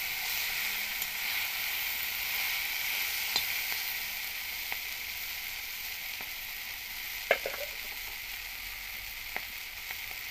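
Hog plum flowers and spices sizzling steadily in oil in an iron wok. A few sharp clicks come through, the loudest, with a short metallic ring, about seven seconds in.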